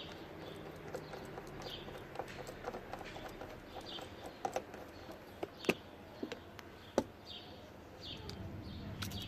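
Scattered small clicks and knocks of hand tools working on car interior trim bolts, with two sharper clicks in the second half. A small bird chirps repeatedly in the background.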